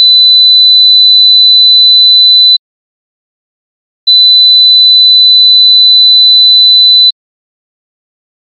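Pure 4 kHz sine-wave test tone for frequency ear training, played twice. It is already sounding at the start and stops about two and a half seconds in, then returns about four seconds in and stops near seven seconds, with dead silence between.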